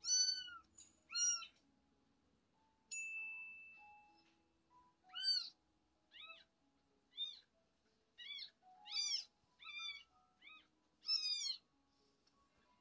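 Newborn kittens mewing from a laptop's speaker: about a dozen short, high-pitched mews, several in quick runs. A steady high beep lasts about a second, about three seconds in, and soft background music plays underneath.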